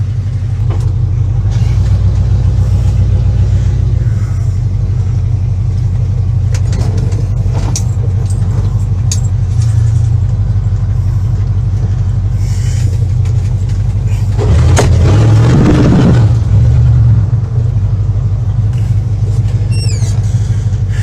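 Dodge D150 pickup's engine running with headers and no exhaust, heard from inside the cab: a steady low rumble that swells louder for about two seconds roughly three-quarters of the way through.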